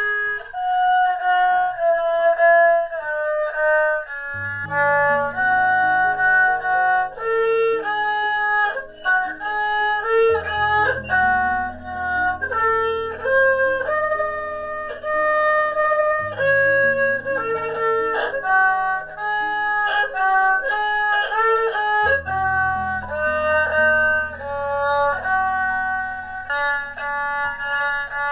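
Erhu bowed in a slow melody of held notes with some slides. From about four seconds in, low sustained accompaniment notes sound beneath it, changing every few seconds.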